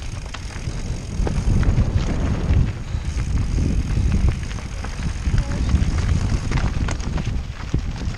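Mountain bike descending fast over rough ground: heavy wind rumble on the microphone, with tyres running over loose terrain and a stream of short clicks and rattles from the bike.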